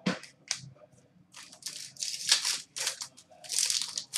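Trading card packs and cards being handled: rustling and tearing of pack wrappers in several short bursts, with a couple of sharp clicks in the first second.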